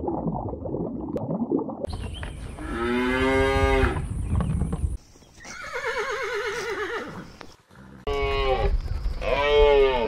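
A series of farm animal calls. First comes a low muffled stretch and a long, drawn-out call. About midway a horse whinnies in one long call with a wavering pitch, and near the end a cow moos twice.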